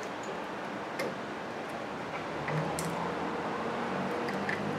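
A few light metallic clicks and taps as a front brake pad is worked into its caliper bracket against the pad's spring clips, over a steady background hiss.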